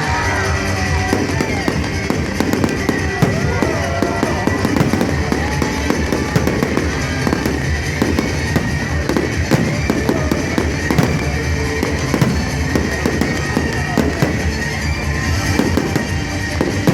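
Fireworks bursting and crackling in quick, irregular succession, with music playing.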